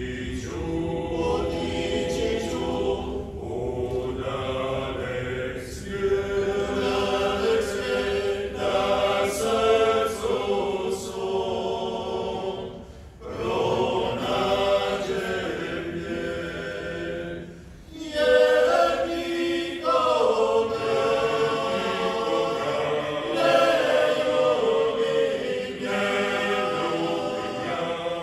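Male folk vocal group of about ten men singing a cappella in close multi-part harmony, long held chords in a traditional Dalmatian style. The phrases break briefly for breath about 13 seconds in and again about 18 seconds in, with the voices coming back in together each time.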